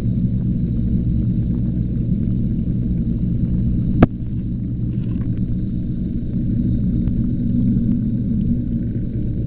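Steady low rumble inside an aquarium, heard underwater, with one sharp knock about four seconds in.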